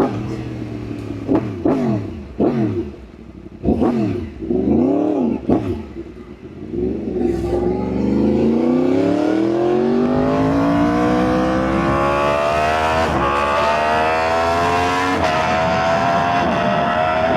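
Yamaha R1 inline-four engine under riding, heard from on the bike: several short throttle blips with quick rises and falls in pitch, then a long hard pull whose pitch climbs steadily, broken by two quick upshifts in the second half.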